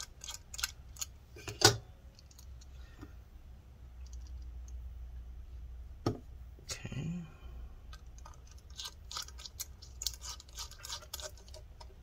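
Small sharp clicks and ticks of a precision Torx screwdriver working small screws into a thin metal hard-drive bracket, with the bracket handled and set down. The clicks come thickly at first, thin out for a few seconds in the middle, then pick up again near the end.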